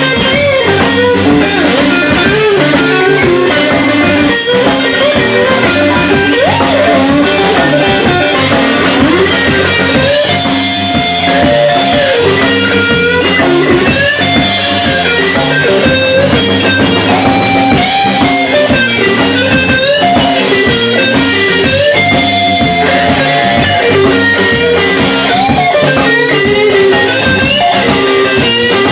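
Live blues band playing loudly: a Stratocaster-style electric guitar plays lead lines with bent notes over a steady drum beat.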